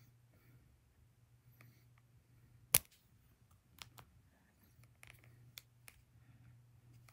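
Fingers tapping and handling an iPad and the phone filming it: one sharp click about three seconds in, then several lighter clicks and taps, over a low steady hum.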